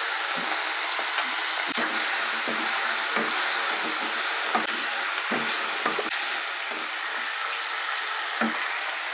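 Capsicum and onion with sauce frying in oil in a non-stick kadai, with a steady sizzle. A wooden spatula stirring them scrapes and knocks against the pan every so often.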